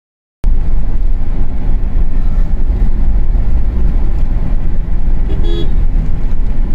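Steady, low-heavy road and engine rumble of a moving car heard from inside the cabin, starting abruptly about half a second in. About five and a half seconds in, a vehicle horn gives one short toot.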